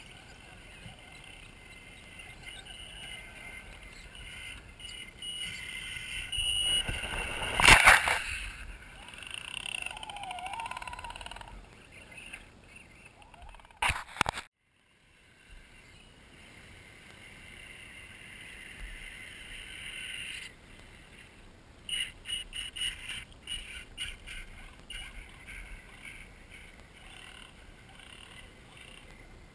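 Small electric motors and gearboxes of RC rock crawlers whining as the trucks climb loose dirt, with a loud sharp knock about eight seconds in. After a brief dropout near the middle, a run of short sharp clatters follows in the second half.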